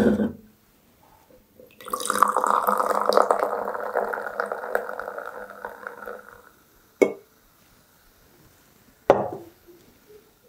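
Fizzy lemon soda poured from an aluminium can into a glass tumbler: a steady splashing fizz lasting about four and a half seconds. It is followed by a sharp click and, two seconds later, a knock.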